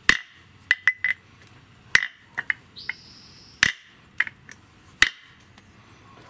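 A cheap laminated-steel padlock struck again and again against the steel back of an axe head: about a dozen sharp metallic clinks with a short ring, the hardest four roughly a second apart. The blows are meant to jar the lock's shackle open without a key.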